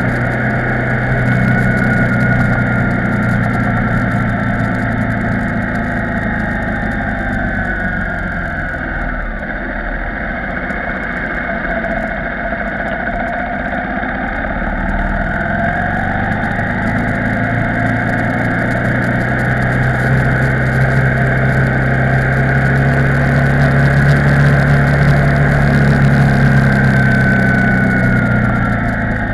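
KTM 990 Supermoto R's LC8 V-twin engine running under way. The revs fall as it slows into a hairpin about ten seconds in, then climb again as it accelerates out, and they ease off again near the end.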